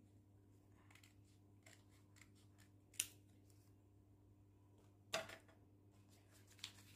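Scissors snipping through rolled newspaper sticks: two sharp snips about two seconds apart, with faint small clicks of paper being handled in between.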